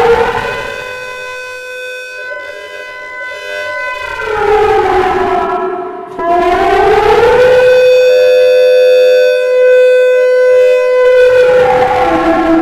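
Finnish D1200 civil defence siren sounding its 'teho ulvo' wail, a loud, slow up-and-down howl. The pitch slides down over the first few seconds and rises again about six seconds in. It holds high for about four seconds, then falls near the end.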